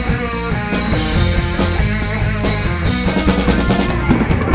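Live rock band playing: electric guitar, bass and drum kit, with a run of quick drum hits near the end leading into a new section.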